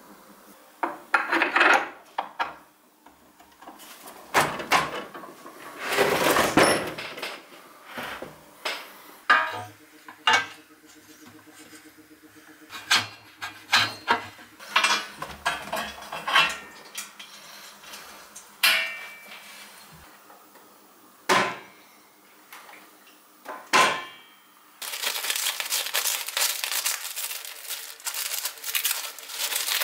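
Metal parts clinking and knocking in irregular strikes as an auger gearbox is fitted to a chainsaw. Near the end, plastic bag wrapping crinkles as it is pulled open.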